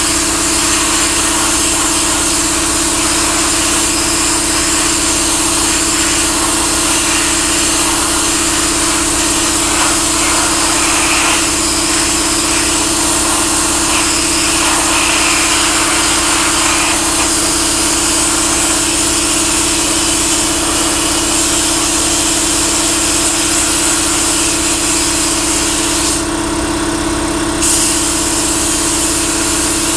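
Pressure-pot sandblaster blasting the steel hood panel of a 1936 Ford truck: a continuous loud hiss of air and grit with a steady low hum underneath. The blast eases briefly near the end.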